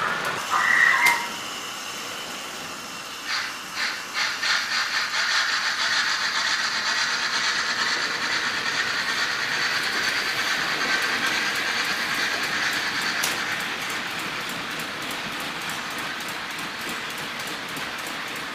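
Märklin H0 model trains running on the layout track: a steady metallic rattle of small wheels over the rails, with a fast, even ticking from the rail joints, starting about three seconds in. A brief high-pitched tone, the loudest sound, comes about a second in.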